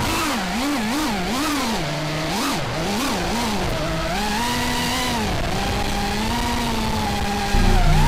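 FPV quadcopter's brushless motors whining, the pitch swooping up and down quickly with the throttle for the first few seconds, then holding steadier. A louder low sound comes in near the end.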